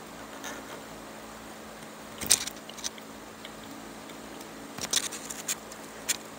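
Strands of chair cane clicking and scraping as fingers work a loose strand through a woven cane seat: a few sharp ticks about two seconds in and a cluster near the end, over a faint steady hum.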